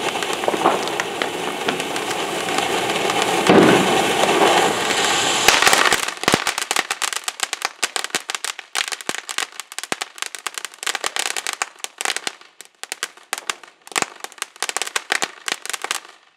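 Ground fireworks fountain going off: a steady spraying hiss for about the first five seconds, then a long run of rapid crackling pops as it throws out crackling sparks, stopping abruptly near the end.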